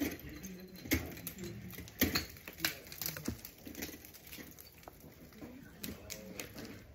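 Ice tools and crampons striking a frozen waterfall: sharp, irregular knocks, the loudest about two seconds in, thinning out in the second half.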